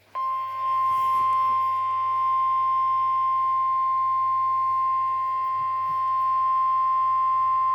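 NOAA Weather Radio warning alarm tone (the 1050 Hz EAS attention signal): one steady, unbroken tone that comes on just after the start. It announces that a warning message follows, here a severe thunderstorm warning.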